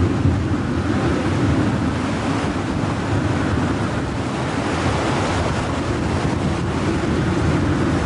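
Rough sea surging and breaking, with strong wind buffeting the microphone.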